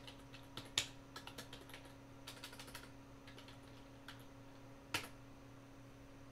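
Typing on a computer keyboard: a quick run of key clicks over the first three seconds as a hostname is typed, then one louder keystroke about five seconds in, the Enter key confirming the entry.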